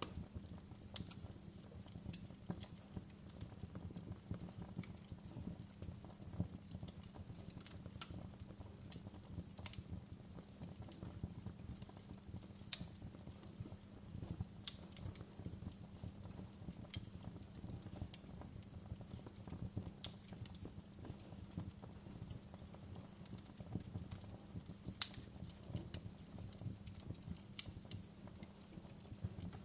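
Wood fire burning in a fireplace: a low steady rumble of the flames with irregular crackles and pops, two louder snaps about halfway through and near the end.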